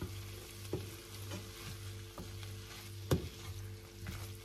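Wooden spoon stirring and scraping pasta in a frying pan on the hob, with several knocks of the spoon against the pan, the loudest about three seconds in. The food sizzles faintly under a steady low hum.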